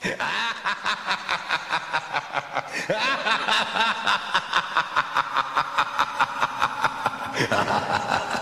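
Long run of cackling laughter: quick, even 'ha' pulses about five a second, shifting in pitch about seven and a half seconds in.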